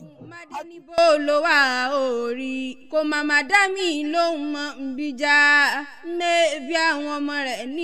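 A single voice singing a Yoruba chant without accompaniment. It sings in phrases with short breaks between them, holding long notes that slide and waver in pitch.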